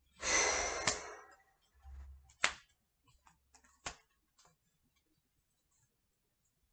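Tarot cards being slid across a tabletop: a brief rustling brush lasting about a second, then two sharp taps a second and a half apart as the cards are set down, then quiet.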